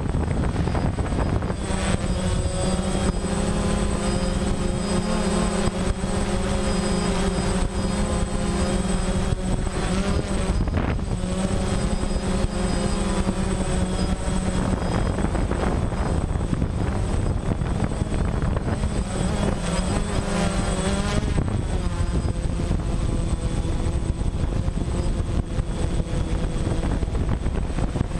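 DJI Phantom quadcopter's motors and propellers whining steadily, heard from the drone's own onboard camera, over a low rush of wind on the microphone. The whine's pitch shifts twice as the drone changes speed, about halfway through and again near three-quarters of the way.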